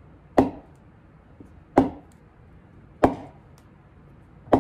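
A baseball's pink rubber pill, which is very hard and very bouncy, being bounced on a tabletop. Four sharp knocks come about a second and a half apart.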